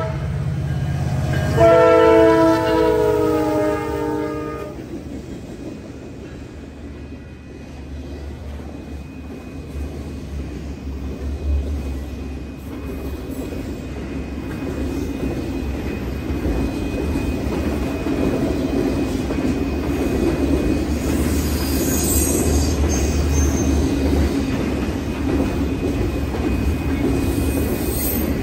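Diesel freight locomotive sounding its horn, a chord of several notes: one blast ends right at the start and a longer one runs from about one and a half to four and a half seconds in. The locomotive then goes by, and a long string of autorack freight cars rolls past with a steady rumble and wheel clatter. A faint thin high ring runs under the rumble from about twelve seconds on.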